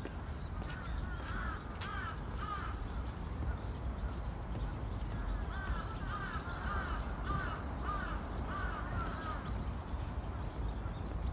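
Crow cawing repeatedly, in a run of calls about a second in and a longer run from about the middle until near the end, over a steady low rumble.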